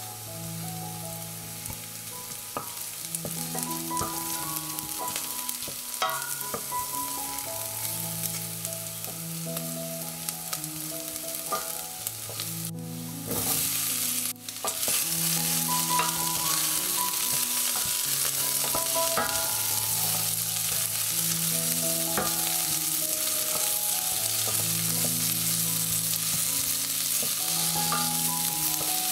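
Onions and diced potatoes sizzling in hot oil in a stainless steel pot, stirred with a wooden spoon. The sizzling steps up and grows louder about halfway through, once the potatoes are in.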